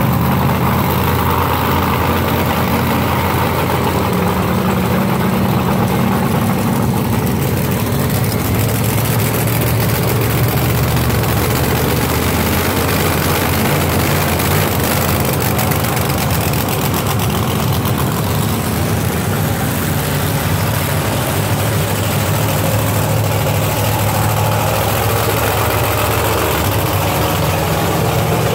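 Monster truck engines running at a loud, steady idle with a deep rumble as the trucks roll slowly past one after another.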